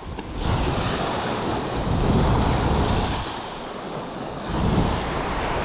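Small waves breaking and washing over sand and rocks, swelling and easing twice, with wind rumbling on the microphone.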